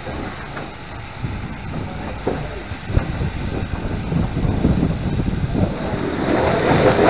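GWR King class steam locomotive 6023 heard from its footplate: a steady hiss of steam over a low rumble, with a few short knocks. It grows louder toward the end as a heavier rush of steam comes in.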